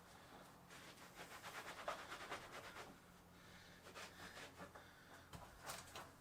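Near silence, with faint irregular rustling and rubbing strokes and a few light knocks over a low steady hum.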